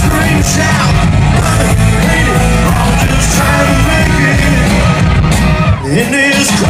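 Live rap-rock band playing loud, with shouted vocals over heavy bass and guitar, recorded very close to the stage so the sound is harsh and overloaded. The music drops briefly about six seconds in.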